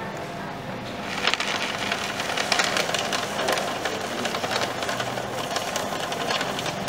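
GBC ShredMaster Auto+ 60X cross-cut paper shredder cutting a sheet of paper, starting about a second in: a dense, continuous crackle of paper being chopped.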